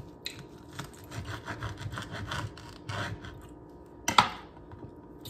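Serrated knife sawing back and forth through a rolled collard-green leaf wrap on a wooden cutting board, in quick scraping strokes, then a single sharp knock about four seconds in.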